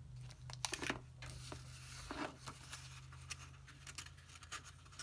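Paper rustling and crinkling as the pages of an old, worn booklet are handled and turned, in irregular short crackles, over a steady low hum.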